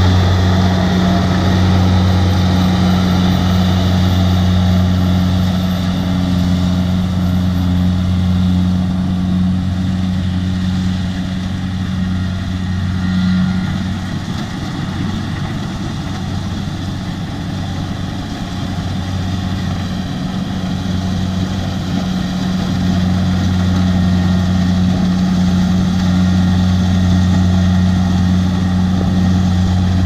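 Kubota DC70 rice combine harvester's diesel engine running steadily with a deep, even hum as it harvests. The hum weakens for several seconds around the middle, then returns to full strength.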